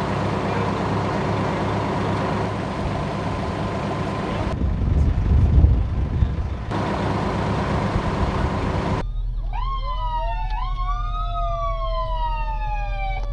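A fire engine's engine running close by with wind noise on the microphone. From about nine seconds in, several emergency-vehicle sirens wail together, their pitches rising and falling in overlapping glides.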